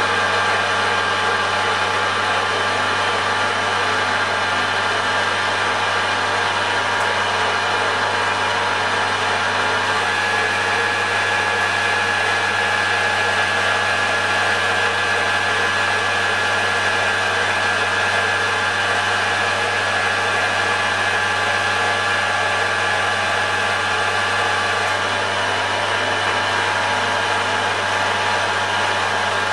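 Metal lathe running steadily under power, turning down a stub axle: a constant motor hum with a steady whine over it.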